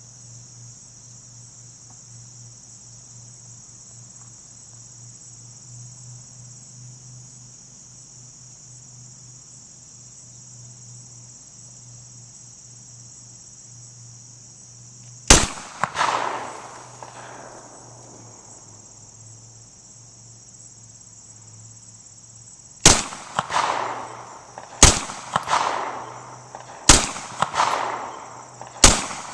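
Five 9mm pistol shots from a Gen 4 Glock 19, each followed by a rolling echo. One comes about halfway through and four more come about two seconds apart near the end, over a steady high insect buzz.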